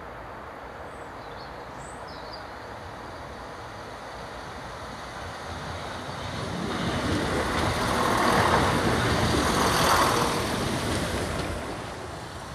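Class 170 Turbostar diesel multiple unit passing: its engine and wheels on the rails build from a distant hum to a peak about eight to ten seconds in, then fade as it goes by.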